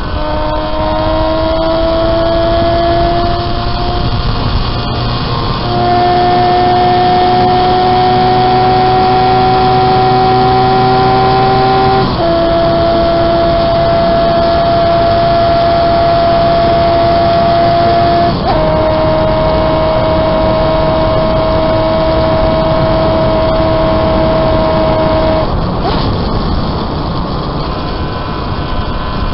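Home-built three-cylinder engine of a 195cc Gillette special racing motorcycle running hard and cleanly at high revs, with wind rush over it. The note climbs slowly, steps down sharply twice (about 12 and 18 seconds in), then fades near the end.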